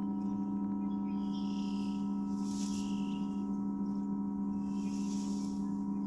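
A battery-powered electronic instrument holding a steady drone of layered low tones. Short higher tones and a hissy swell come and go over it, the swell about every two and a half seconds.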